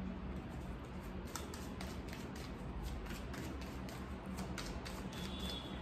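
A deck of tarot cards being shuffled by hand: a run of light card clicks, about four or five a second, starting about a second in.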